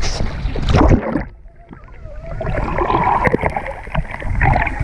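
Water splashing as a person plunges into the sea off a boat's water slide with an action camera. About a second in, the camera goes under and the sound turns muffled, with faint bubbling and gurgling, then it comes back up into sloshing, splashing water at the surface.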